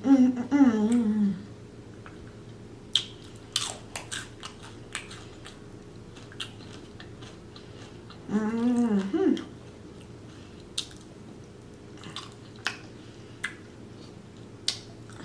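Close-miked chewing and biting of a mouthful of orange chicken and rice, with scattered sharp mouth clicks and smacks. A short hummed 'mm' comes at the start and again about halfway through.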